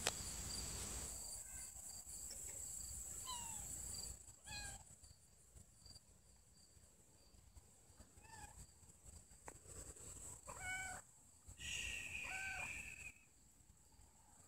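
Cat mewing: about six short mews spaced out over several seconds, some falling slightly in pitch. A rushing noise runs under the first few mews.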